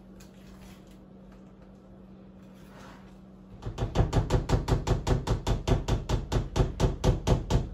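A spatula stirs thick pound cake batter in a mixing bowl at a brisk, even pace, about four to five strokes a second, starting about three and a half seconds in. Before that there is only a faint low hum.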